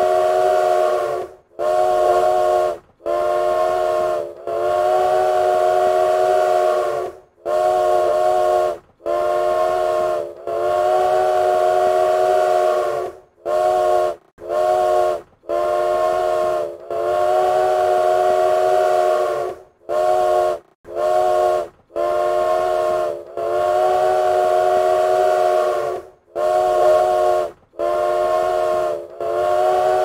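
Steam locomotive whistle blowing about eighteen blasts in a row, some short and some long, with brief breaks between. Each blast is the same steady chord of several notes and stops cleanly.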